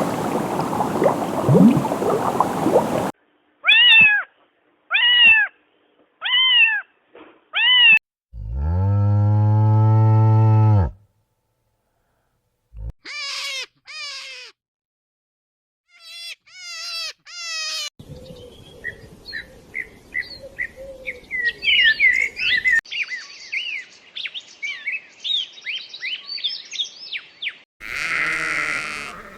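A string of separate animal calls with short silences between them. It opens on chickens clucking over a hiss, then a cat meows four times. Next comes one long, low moo of about two and a half seconds, followed by a few short high calls and a stretch of fast, high chirping, and a bleat begins near the end.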